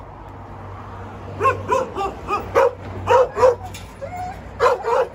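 A dog barking in a quick run of short, high-pitched barks, starting about a second and a half in.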